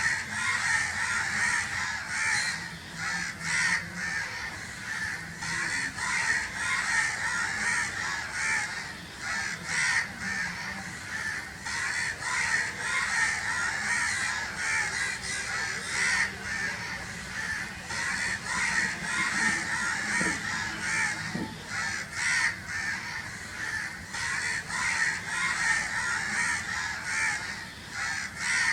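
A flock of crows cawing continuously, many harsh calls overlapping with hardly a break.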